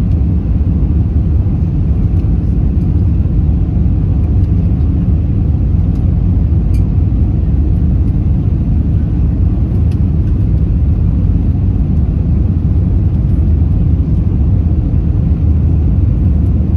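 Steady low cabin rumble inside an Airbus A320-232 on final approach with the landing gear extended: engine and airflow noise from its IAE V2500 engines and the airframe.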